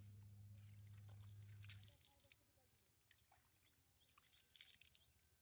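Faint rustle and patter of a wet cast net being shaken out, water dripping and small fish dropping onto muddy ground, in two short spells. A low steady hum stops about two seconds in.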